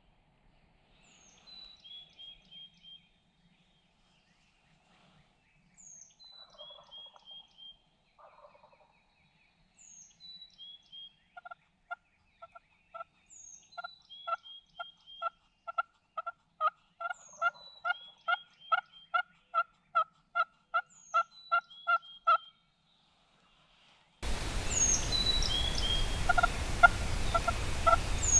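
Turkey call worked by hand, sounding hen turkey yelps: a few soft, faint calls at first, then a long even run of about two yelps a second that grows louder over some ten seconds. A songbird sings a short high phrase every few seconds. Near the end the background hiss jumps up and more yelps follow.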